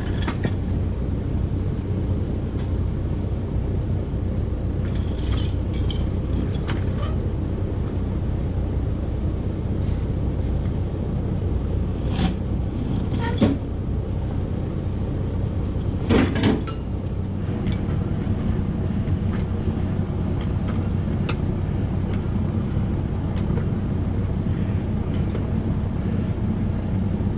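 Electric shop fan running with a steady drone and low hum, broken by a few sharp metallic clinks about twelve to sixteen seconds in.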